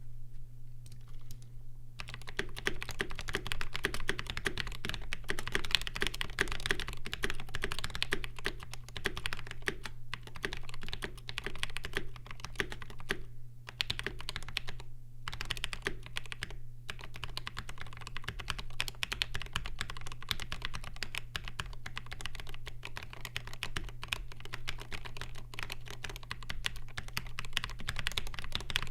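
Typing on a Mark: 65 gasket-mount 65% mechanical keyboard fitted with L2 linear switches, lubed with 2050 and swapped to light springs of around 30 grams. Fast continuous keystrokes start about two seconds in and carry on with a few short pauses.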